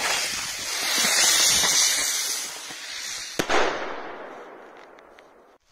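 Consumer firework spraying sparks with a loud hissing rush that fades over a few seconds, then a single sharp bang about three and a half seconds in.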